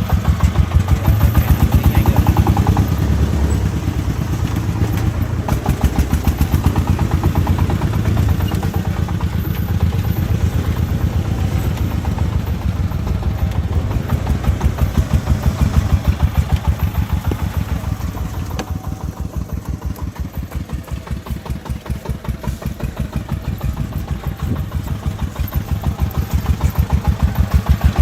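Single-cylinder diesel engine of a công nông three-wheeled farm truck chugging in a fast, even beat. It eases off somewhat about two-thirds of the way in and grows louder again near the end.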